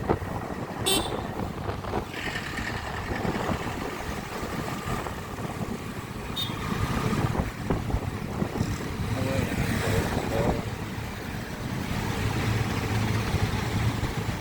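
Motorcycle engine running while riding through town traffic, with wind buffeting the microphone. A vehicle horn sounds about two seconds in.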